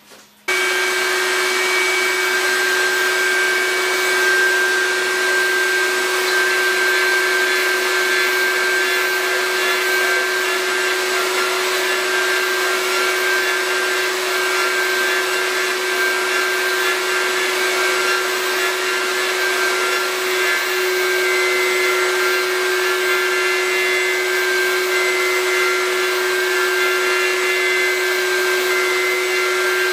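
CNC router's spindle motor running at steady high speed with a constant whine while its bit carves a relief into a wooden board. It comes in abruptly about half a second in and holds steady throughout.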